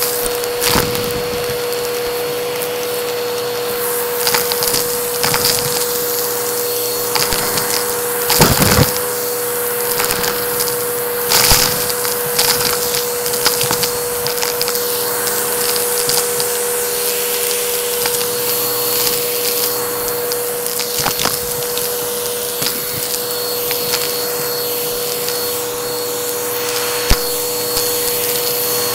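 Upright vacuum cleaner running with a steady motor whine while sucking up a thick, clunky debris mix, the pieces crackling and clattering through it, with louder crunches about a third of the way in and again later.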